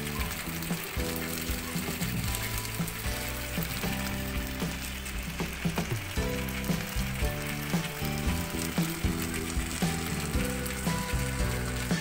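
Shashlik sauce sizzling and bubbling on a hot sizzler plate, a steady crackling hiss, with background music playing over it.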